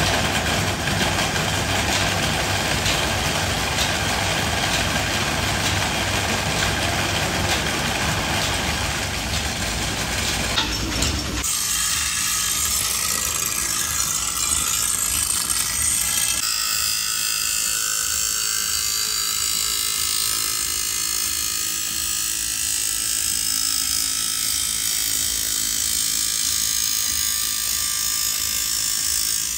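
A drill press boring into wood. About eleven seconds in it gives way to a grinding wheel sharpening a steel chaff-cutter blade, a steady high-pitched grinding noise.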